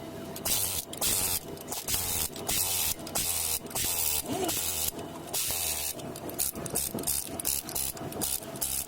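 Compressed air hissing in a long run of short, irregular bursts, about two a second, from pneumatic tyre-service tools at work on a truck tyre.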